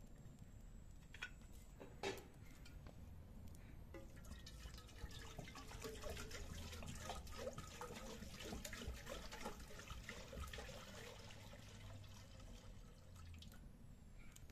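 Faint bubbling and splashing of liquid in an open cooking pot on a wood fire as something is added from a bowl. It swells up a few seconds in and dies down near the end, after a couple of light knocks at the start.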